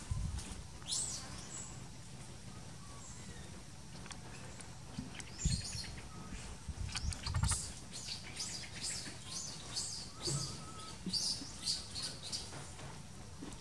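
Birds chirping: short, high calls, a few at first, then coming thick and fast through the second half, with a few dull low thumps.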